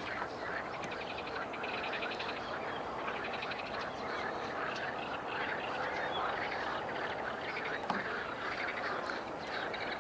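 Chorus of frogs calling, many overlapping calls with rapid pulsed trills going on steadily.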